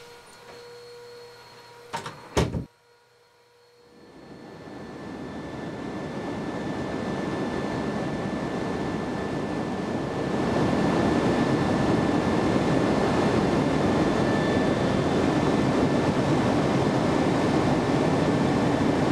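A steady high ringing tone, broken about two seconds in by two sharp knocks, then a short hush. From about four seconds a low roar swells up and holds steady and loud from about ten seconds: the engine drone inside a troop-transport aircraft cabin, used as film sound design.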